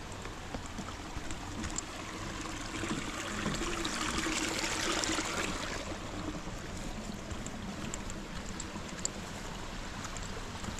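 Steady rush of running water, like a stream, swelling for a couple of seconds near the middle, with a few faint ticks.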